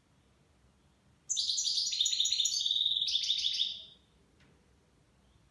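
European goldfinch singing one phrase of rapid twittering trills lasting about two and a half seconds, starting about a second in, in the Levantine (Shami) song style.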